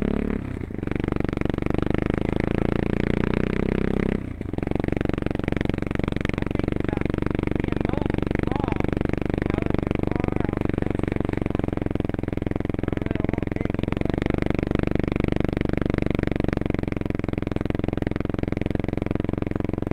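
Four-wheeler (ATV) engine running steadily under way, with the throttle dropping off briefly about half a second in and again around four seconds in.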